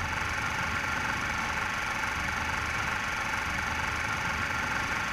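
Steady, even noise drone with a faint low hum: the sustained tail of a logo sound effect after its opening boom.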